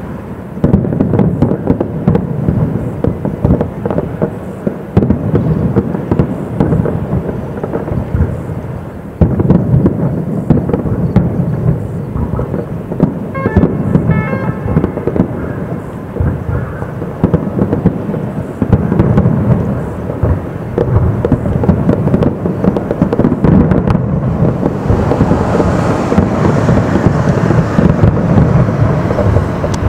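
Fireworks display: a dense, continuous barrage of aerial shell bursts, booms overlapping into a thunder-like rumble. A run of quick crackles comes about halfway through, and a brighter crackling hiss joins the booms in the last few seconds.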